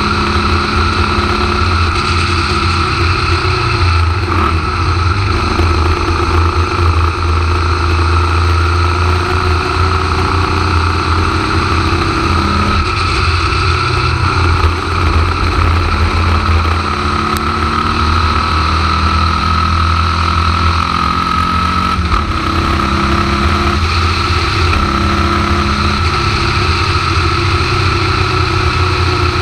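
Formula Vee racing car's air-cooled Volkswagen flat-four engine running hard, heard on board, its revs rising and falling as the car is driven through the corners.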